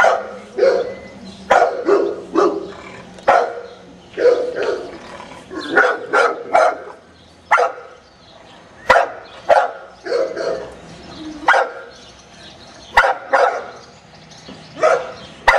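Dogue de Bordeaux mastiffs in kennel runs barking: repeated single barks, roughly one a second at an uneven pace.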